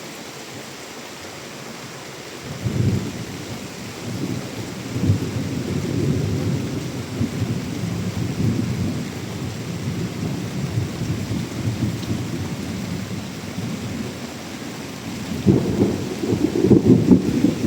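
Steady hiss of heavy monsoon rain, joined about two and a half seconds in by a long, rolling rumble of thunder that swells again near the end.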